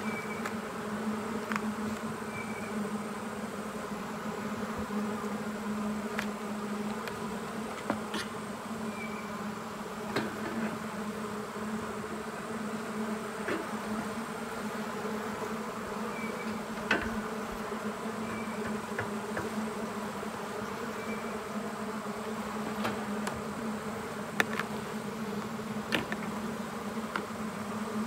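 A colony of honey bees buzzing in a steady, continuous drone over an open horizontal hive, with a few light clicks and knocks scattered through it.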